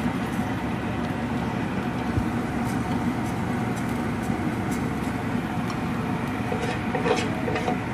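Cumin seeds crackling in hot oil in a non-stick frying pan: a scatter of faint, light pops starting a couple of seconds in. A steady low hum and hiss runs beneath throughout.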